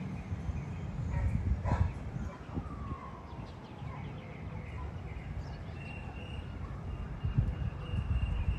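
Outdoor neighbourhood ambience: a steady low rumble with faint distant animal calls, one sliding down in pitch a few seconds in and higher ones near the end.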